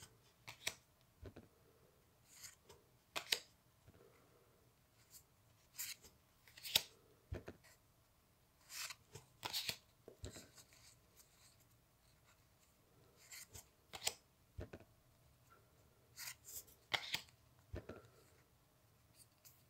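Stiff trading cards sliding and flicking against one another as a small hand-held stack is thumbed through one card at a time: short, papery swishes and snaps at irregular intervals, one every second or two.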